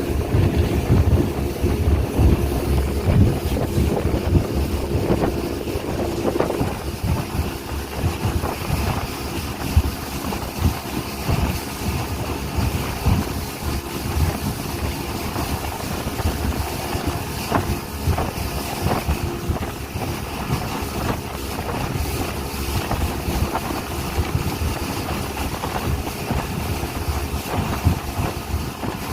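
Speedboat engine running steadily under way, with wind buffeting the microphone.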